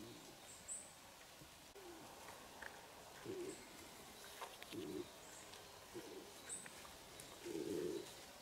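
Short, low cooing calls, a few times with a second or two between them, the longest and loudest near the end. Faint high bird chirps and a few light snaps come through in between.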